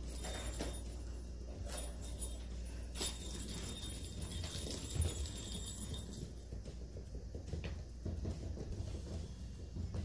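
Kittens' paws pattering and scrabbling on a cork floor mat as they play, a run of quick, irregular light taps and scratches.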